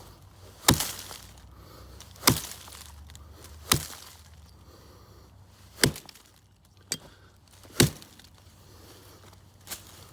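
Origin Knives Bushcraft Axe, with its O1 tool steel head, chopping into a log about 10 inches across while bucking it. There are five heavy strikes about one and a half to two seconds apart, with two lighter knocks between the later ones.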